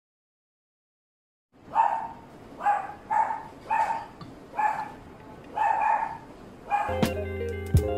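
Pomeranian barking repeatedly, about seven barks roughly a second apart, starting a second and a half in after dead silence. Background music comes in near the end.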